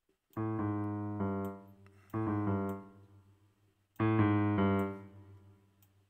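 Piano chords from a Yamaha PSR-S975 keyboard, sounded three times about two seconds apart as the chord notes are edited; each chord rings for about a second and fades.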